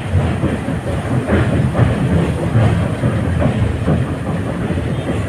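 Train running along the track: a steady low rumble with repeated knocks of the wheels over the rails.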